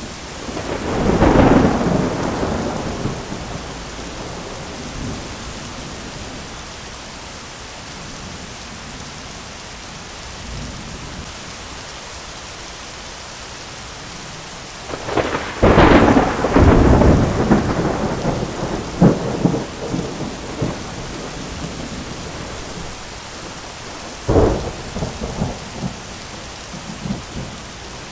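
Thunderstorm: steady rain with rolls of thunder. A rumble swells about a second in and fades; a louder, crackling peal runs from about the middle for several seconds, and another sharper clap comes near the end.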